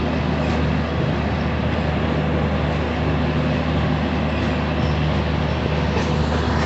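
Steady rumble of a train running on the rails, with a low steady hum under it, as a goods train of covered wagons moves along the adjacent track.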